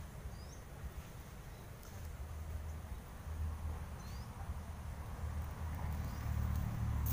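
Faint outdoor ambience of insects with a steady high hum and three short rising bird chirps, over a low rumble.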